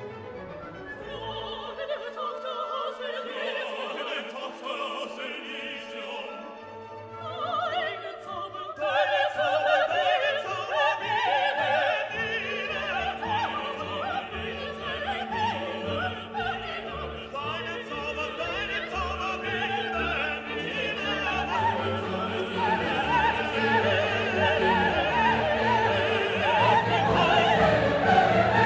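Orchestral classical music with operatic singing, quieter at first and swelling louder about eight seconds in.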